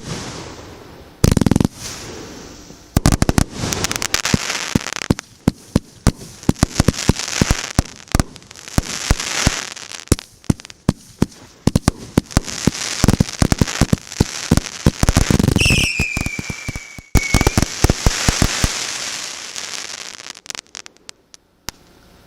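Consumer fireworks cake (Vlast Ognya MB166 battery) firing: a rapid string of sharp bangs from bursting shells, with crackling between them. A falling whistle sounds about two-thirds through. The bangs stop shortly before the end, and the crackling dies away.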